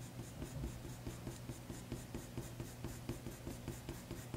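Coloured pencil stroking lightly and quickly across drawing paper, a soft scratching at about five short strokes a second. This is very light-pressure shading, a layer of blue laid over a pale buff colour.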